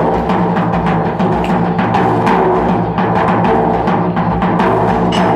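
Instrumental Iraqi folk music without singing: drum strokes over a held melodic accompaniment.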